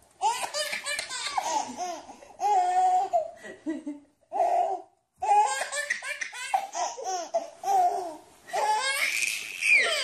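A baby laughing in repeated bursts, with brief pauses about four and five seconds in and a high rising squeal near the end.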